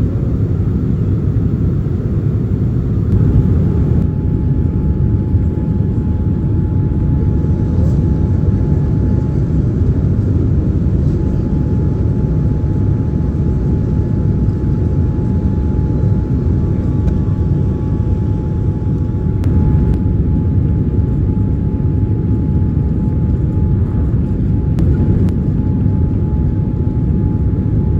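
Steady cabin rumble of a Boeing 787-9 airliner in descent: engine and airflow noise heard inside the cabin, with a faint steady high tone coming in about three seconds in.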